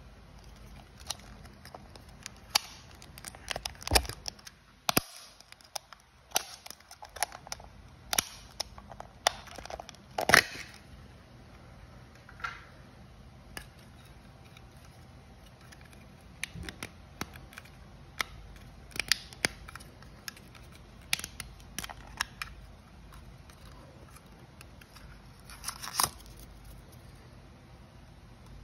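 Close handling sounds: scattered sharp clicks, taps and short crinkles, irregularly spaced, with the loudest knocks about four and ten seconds in.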